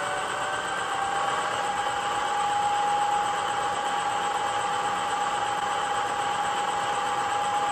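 Loksound 5 sound decoder in an HO scale WDG4 diesel locomotive model playing its prime mover at raised revs with the air compressor switched on, through the model's small speaker. A steady whine sits over a hiss, climbing slightly at first and then holding.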